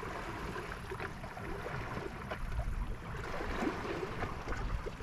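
Outdoor ambience of wind rumbling on the microphone and water lapping, with a few faint light ticks and rustles.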